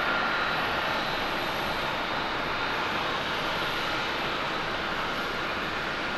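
Airbus A350-1000's Rolls-Royce Trent XWB jet engines passing on landing approach: a steady jet roar with a high whine that fades over the first couple of seconds.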